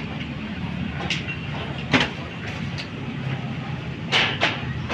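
Steady low rumble with a few sharp knocks from equipment being handled at the mixing desk: one about two seconds in and two quick ones near the end.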